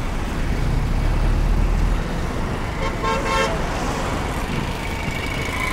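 Busy road traffic passing close by, with a heavy low engine rumble for the first two seconds. A vehicle horn sounds briefly about three seconds in.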